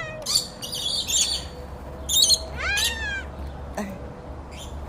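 Parrots screeching: harsh, shrill bursts about a third of a second in and again near two seconds, then a drawn-out call that rises and falls in pitch.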